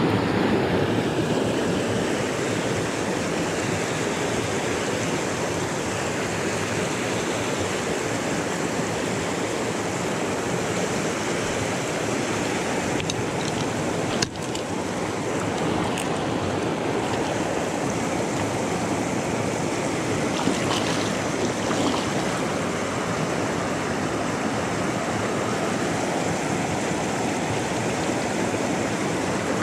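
River water rushing over rocky rapids, a steady wash, with a single sharp click about halfway through.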